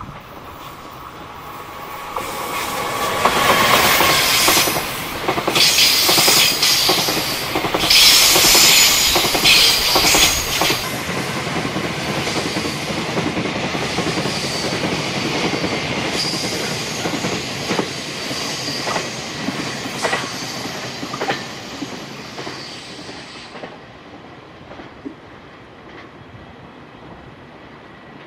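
EF210 electric freight locomotive and its flat wagons loaded with long rails passing close by. The sound builds from about two seconds in and is loudest for the next eight seconds or so, with a high wheel squeal and sharp clicks of wheels over rail joints. It then fades as the wagons roll away, dropping off after about twenty-four seconds.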